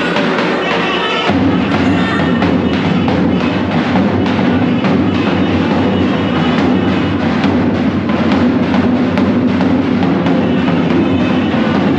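Loud dance music with a steady, dense drumbeat; a heavier, fuller low part comes in about a second in.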